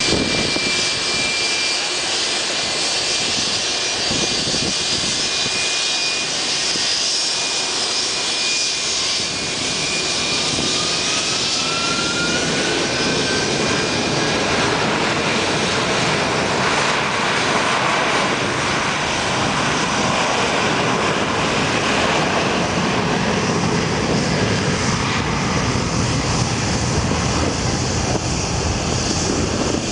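Boeing 757 jet engines at takeoff power during the takeoff roll and liftoff. It is a steady roar with high whining tones, and a whine rises in pitch about ten seconds in. The roar deepens and grows louder through the second half as the jet speeds past and leaves the ground.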